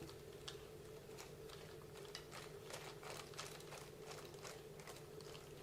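Faint, irregular light clicks and taps of small RC car parts being handled, over a steady low hum.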